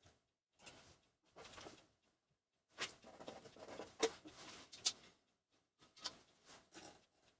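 Faint, fast-forwarded handling noise of precision measuring tools on a workbench: a telescoping bore gauge and micrometer being worked and readings written on a clipboard. It comes in short, irregular bursts, with two sharp clicks about four and five seconds in.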